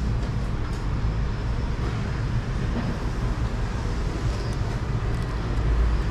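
Steady low rumble of traffic noise in the city street, with no distinct events.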